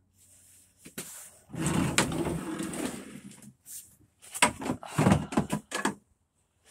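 Equipment being shifted around on a chipboard shed floor: a knock, a stretch of scraping and rustling, then a run of knocks and clatters.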